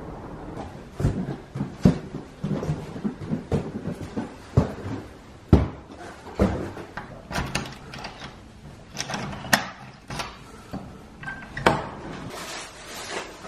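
A series of irregular wooden knocks and clunks: wooden doors being opened and shut and footsteps on the old house's wooden floor, which sounds at every step.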